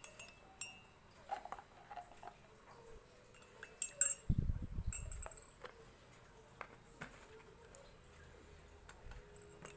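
A metal spoon clinking and tapping against a glass and a honey jar while honey is spooned into lime juice and warm water, in scattered light clinks. A dull low thump comes about four seconds in.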